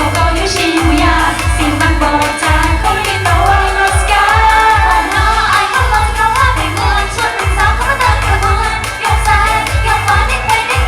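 Thai pop song with a singing voice over a steady, heavy bass beat, played loud.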